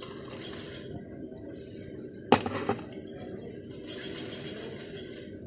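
A sharp clank about two seconds in, followed quickly by two lighter knocks, over a steady background of hum and hiss.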